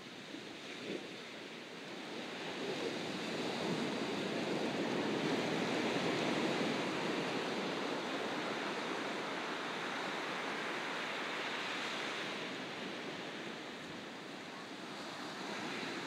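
Sea waves breaking on a beach: a long wash of surf builds about two seconds in, is loudest near the middle and fades toward the end, as the next wave starts to rise.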